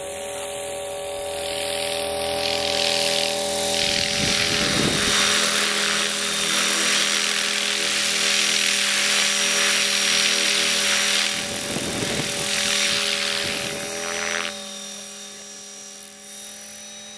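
Radio-controlled model helicopter flying overhead: a steady whine of rotor and motor tones under a loud rushing rotor noise. The noise swells about two seconds in and drops away suddenly about three seconds before the end.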